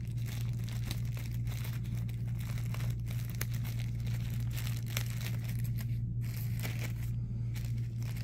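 Small plastic accessory packet crinkling and crackling as it is handled and opened, over a steady low hum.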